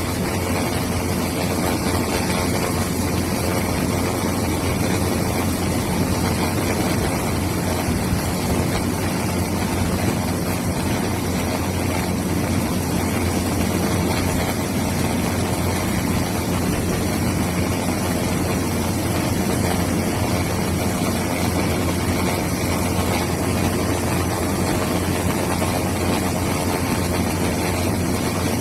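Steady, unbroken engine and rotor noise of an aircraft.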